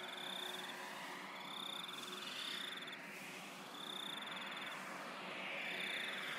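Layered, electronically processed soundscape: a high, pulsing insect-like chirp recurs about every two seconds over a dense bed of hiss with slowly sweeping pitch-shifted layers.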